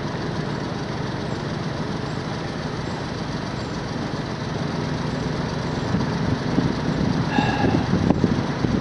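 A vehicle engine running steadily, a low, even rumble, with a short high tone about seven seconds in.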